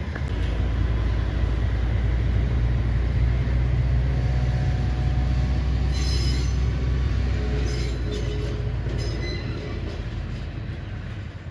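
Sugarcane-railway diesel locomotive pulling away, its engine running with a deep, steady note. Brief high-pitched wheel squeals come about six seconds in and again a couple of seconds later. The sound fades toward the end as it moves off.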